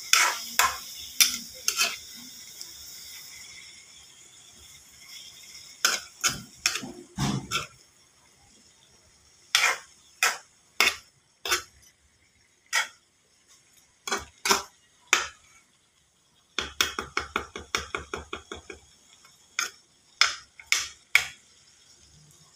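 A metal cooking utensil knocking and clinking against a pan as food is stirred. The sharp knocks come scattered, with a quick run of taps, about seven a second, roughly two-thirds of the way through.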